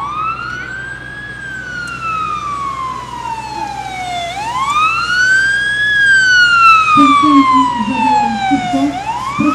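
Police van's siren wailing: each cycle climbs quickly, then falls slowly over about three seconds, repeating roughly every four and a half seconds. It grows louder as the van drives closer.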